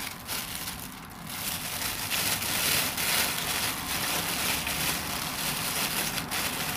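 Thin plastic bag crinkling and rustling as it is handled and scrunched, a dense irregular crackle that grows louder about a second in.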